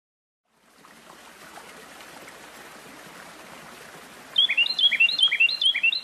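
A soft, steady ambient hiss fades in from silence. About four seconds in, a bird sings a quick, loud run of repeated two-note chirps, about five in a row.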